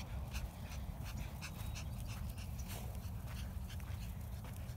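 Dog panting in quick irregular breaths, over a steady low rumble.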